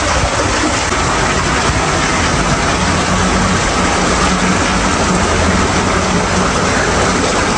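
Sulphur spring water gushing up among rocks and churning into a pool: a steady, unbroken rushing.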